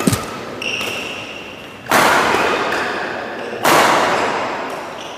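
Badminton rally: rackets striking the shuttlecock, with two loud hits about a second and a half apart that echo and die away through the hall. A brief high squeak, likely shoes on the court, comes before them.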